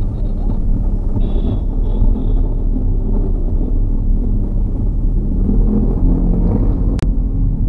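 Steady low rumble of a car's engine and tyres heard from inside the cabin while driving in traffic, with a single sharp click near the end.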